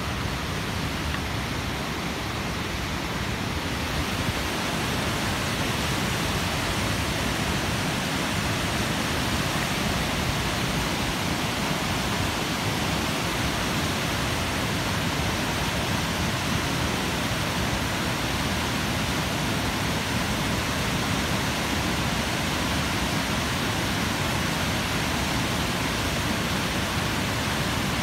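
Water rushing steadily over a curved concrete dam spillway, a continuous even roar that grows slightly louder about four seconds in.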